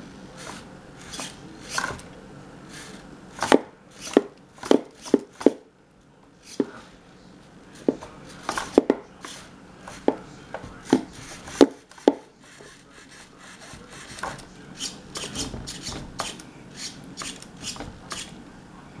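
Sharp knocks and taps from the servo-driven plastic legs of a robot cat striking a cardboard box, in irregular runs. The loudest cluster, about a dozen knocks, comes in the middle, and quicker, lighter tapping follows near the end.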